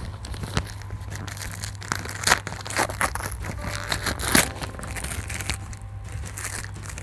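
Brown paper wrapping on a cardboard box being picked at and torn open by hand: crinkling and crackling with sharp rips, the loudest a little over two seconds in and about four and a half seconds in.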